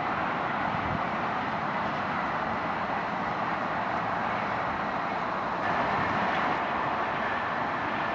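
GO Transit MP40PH-3C diesel locomotive pulling a ten-car bilevel train away: a steady running noise with no horn or single knocks.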